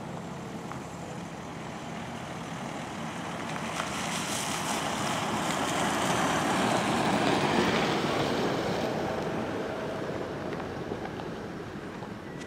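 A motor vehicle driving past, its noise swelling to a peak a little after halfway and then fading away.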